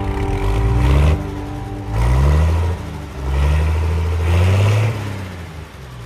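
An engine revving up three times, each rise in pitch lasting about a second or more, then dropping back and fading near the end.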